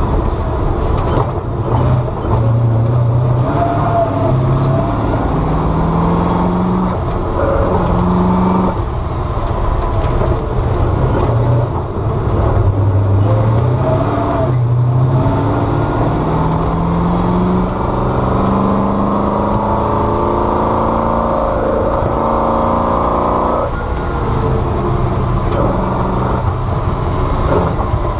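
Bizzarrini 5300 Strada Competizione's naturally aspirated 5.3-litre Chevrolet V8 driven hard, its pitch repeatedly climbing under throttle and dropping sharply, with the longest climb lasting about eight seconds before a sudden drop near the end.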